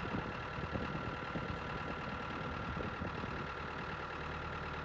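New Holland TT75A tractor's diesel engine idling steadily, with an even hum. A solenoid valve has just switched it onto preheated B100 biodiesel made from animal fat, and the engine's sound gives no sign of the change.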